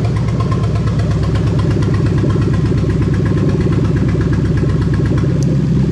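Toyota 1UZ-FE four-litre V8 idling steadily, its note settling slightly lower near the end.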